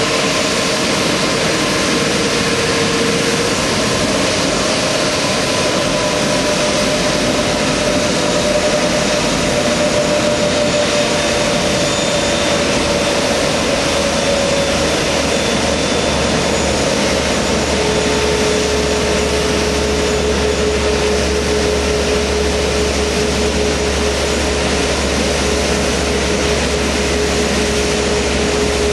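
Airbus A380's four turbofan engines running at taxi power as the airliner rolls slowly past: a steady, loud jet rush with a whining tone that shifts in pitch. A low hum comes in about halfway through.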